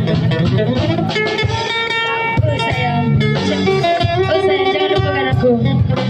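Street band music with guitar to the fore, an instrumental passage with no sung words.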